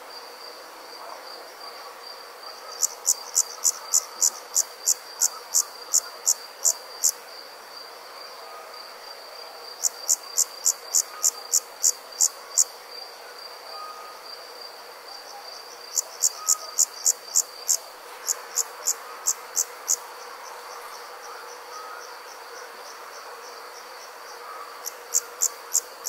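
Summer night insects: a steady high trill underneath, with four bouts of loud, sharp chirps at about three a second, each bout lasting a few seconds.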